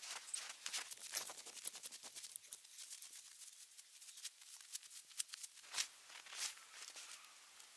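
Faint footsteps crunching through deep snow, an irregular crackle of steps, with two louder crunches near the end.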